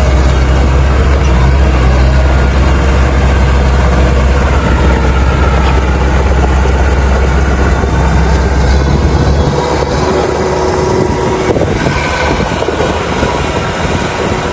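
Rice combine harvester running loudly, a deep engine drone under a steady mechanical rattle; about two-thirds of the way through the deep drone falls away, leaving the clattering.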